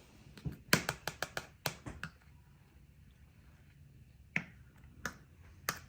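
Hard utensil clicking and tapping against a container as ice cream is scooped down: a quick run of about eight sharp clicks near the start, then three single taps spaced over the last two seconds.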